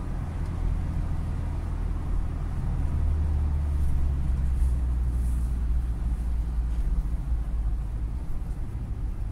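Steady low rumble of a UAZ Patriot with a ZMZ Pro petrol engine, heard from inside the cabin while cruising on a highway: engine and tyre noise together, swelling slightly for a few seconds midway.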